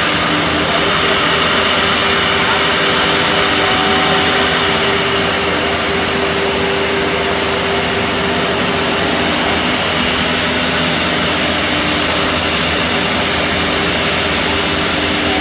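Four-head CNC mortising machine's router spindles running and cutting mortises into curved wooden chair parts: a loud, steady whine and hiss that does not let up.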